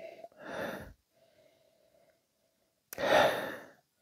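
A man breathing through his nose while nosing a glass of whisky: two audible breaths, a softer one about half a second in and a louder one about three seconds in.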